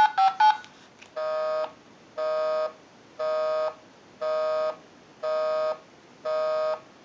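TS22 lineman's buttset finishing an auto-dial of a stored number with a few quick touch-tone (DTMF) beeps. Then comes a telephone busy signal: a buzzy tone that goes on and off about once a second, six times. It means the called line is busy.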